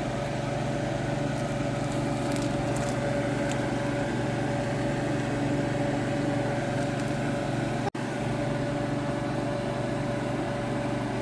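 A steady mechanical hum with a faint constant whine, like an appliance motor or fan running. It breaks off for an instant about eight seconds in.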